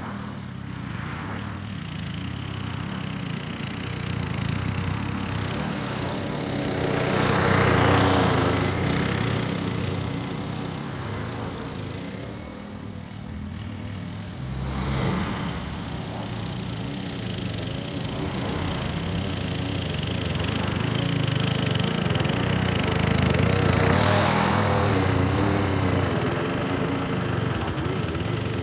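Powersmart 21-inch walk-behind lawn mower's 144cc single-cylinder four-stroke engine running steadily under load while cutting thick grass, growing louder and fainter as the mower is pushed toward and away along its passes.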